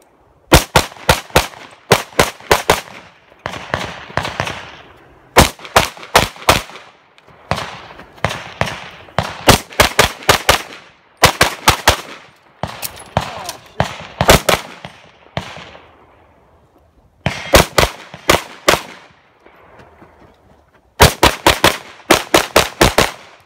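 Limcat Customs J-38 Open-division race pistol fired in fast strings of three to six shots, each string a few seconds apart, with short pauses in between; some strings sound softer than others.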